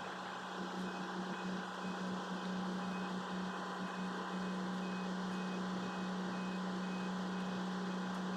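A steady, unchanging low mechanical hum, with a faint high pip repeating at an even pace through the middle.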